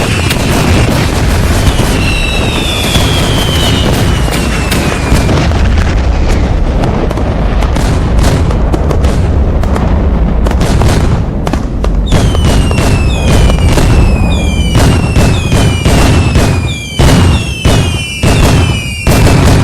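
Fireworks: a dense, continuous barrage of bangs and crackling, with a few short falling whistles. About halfway through it turns into a regular run of whistles, each ending in a sharp bang, roughly one and a half a second.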